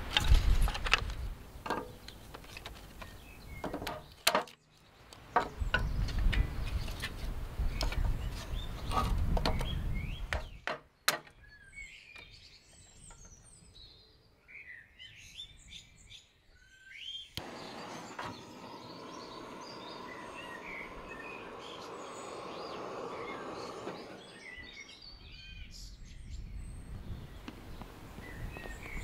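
Wind on the microphone and light knocks of wooden kindling being laid into a metal firebox, then small birds chirping and twittering, with a steady noise underneath in the second half.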